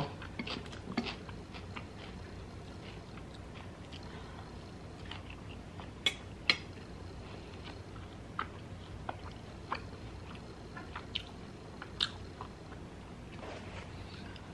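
Close-miked chewing with the mouth closed: soft, wet mouth clicks and smacks, a dozen or so at irregular spacing over a quiet steady background.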